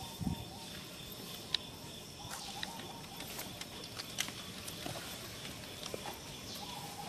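Quiet outdoor ambience: scattered light clicks and rustles over a faint steady high hum, with a soft low thump just after the start.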